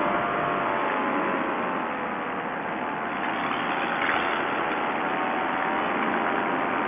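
Paramotor's two-stroke engine and propeller running steadily, its pitch sagging a little about two seconds in before holding.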